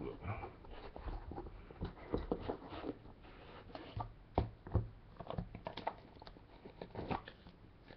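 Scattered light clicks, taps and rustles of hands handling a Panini Flawless trading-card box and lifting a card in a plastic holder out of it.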